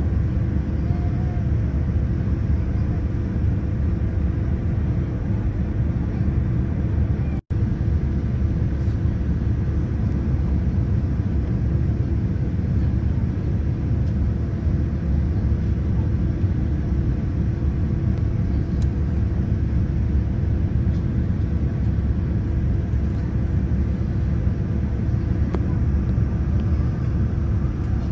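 Steady low roar of an airliner cabin in flight, engine and airflow noise heard at a window seat as the plane comes in over the city. The sound cuts out for an instant about seven seconds in.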